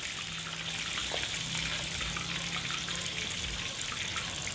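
Chicken pieces deep-frying in hot oil in a wok on their second fry to crisp the skin: a steady sizzling hiss flecked with fine crackles, over a low steady hum.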